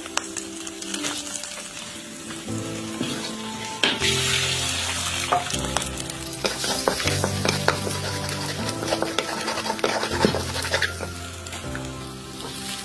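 Stir-fry sizzling in a hot wok, with a spatula scraping and clicking against the pan as the food is tossed. Sustained notes of background music run underneath.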